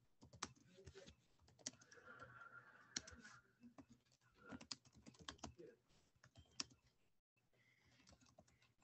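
Faint, irregular keystrokes on a computer keyboard: someone typing.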